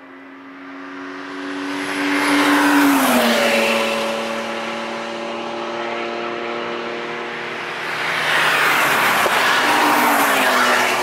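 Cars on a race track passing close at speed one after another, engines running hard. The engine notes swell and then drop in pitch as they go by, once a few seconds in and again near the end as two more cars pass together.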